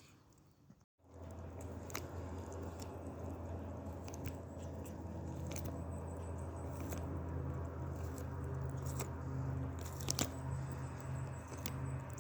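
A bird of prey tearing at and eating meat: scattered crunches and sharp clicks over a steady low hum, starting about a second in.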